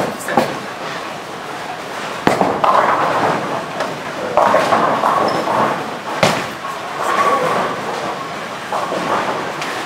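Tenpin bowling alley noise: three sharp hard knocks, one near the start, one about two seconds in and one about six seconds in, over a steady clatter of voices in a large hall.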